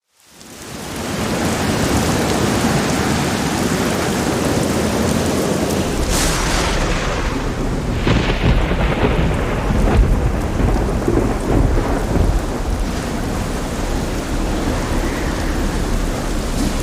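Steady rain, fading in over the first second, with a crack of thunder about six seconds in followed by a deep rolling rumble that swells again a few seconds later.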